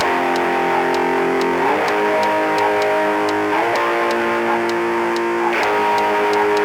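Live gqom-grunge band music without vocals: sustained electric guitar chords that change about every two seconds over a steady ticking beat.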